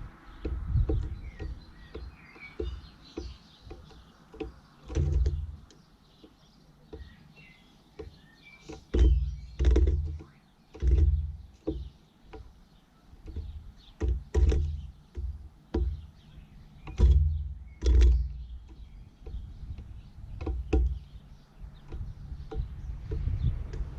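Irregular dull thumps and sharp taps, a dozen or so, the loudest clustered through the middle, with faint bird chirps in the first few seconds.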